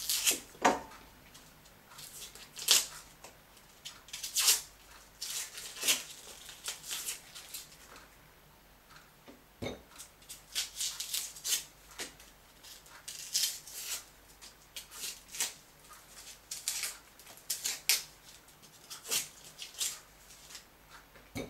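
Dry onion skins rustling and crackling as onions are peeled by hand, in short irregular strokes with brief pauses.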